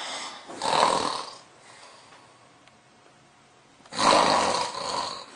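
A man snoring loudly, two long rasping snores a few seconds apart.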